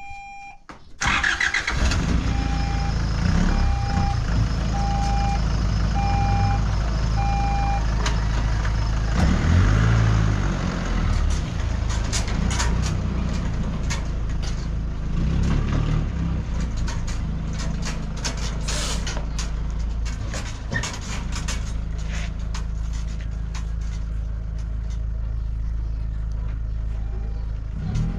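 A pickup truck's engine starting about a second in and then running as the truck backs up and turns, with a reversing beeper sounding about six evenly spaced beeps early on. The engine note rises briefly around ten seconds in as the truck pulls away.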